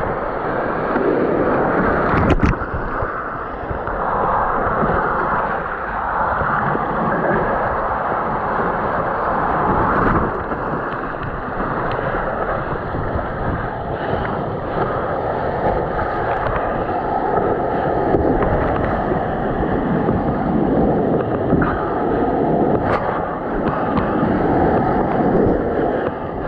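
Whitewater rapids rushing and splashing around a slalom kayak, heard close from a camera on the boat, with wind buffeting the microphone. There are a couple of sharp knocks, one about two seconds in and one near the end.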